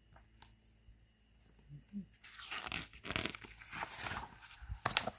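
A paper page of a picture book being handled and turned: a crackling rustle that starts about two seconds in and runs on, with quick sharp crinkles.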